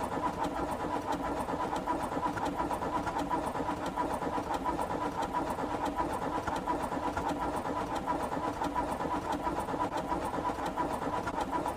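Car engine cranking on the starter motor with a steady pulsing churn, turning over without catching. The owner puts the no-start down to spark plugs wet from driving in heavy rain.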